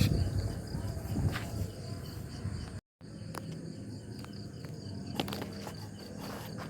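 Crickets chirping steadily in a pulsing high trill, with rustling and a few sharp knocks in the first couple of seconds. The sound drops out for a moment about three seconds in.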